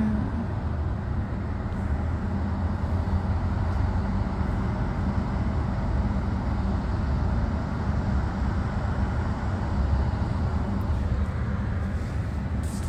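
Steady road and engine noise inside a moving car's cabin, a constant rumble with a low hum running under it.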